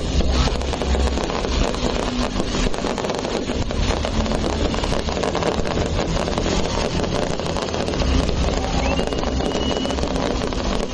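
Fireworks display heard through wind buffeting the microphone: a dense rumble with crackling, swelling near the start and again about eight seconds in, and a short whistle about nine seconds in.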